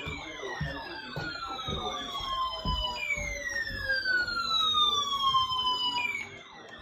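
Sirens sounding together: a falling tone that restarts about every three seconds, over a fast warbling siren, with irregular low thumps beneath. The sound drops away near the end, leaving a steady low hum.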